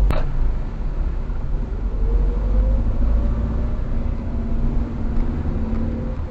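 Car driving, heard from inside the cabin: a steady low road-and-engine rumble with an engine drone that rises slightly in pitch about two seconds in. A single short click right at the start.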